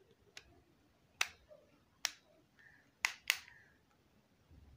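Plastic back cover of a Symphony D40 feature phone being pressed shut, its clips snapping into place with several sharp clicks, the last two close together about three seconds in.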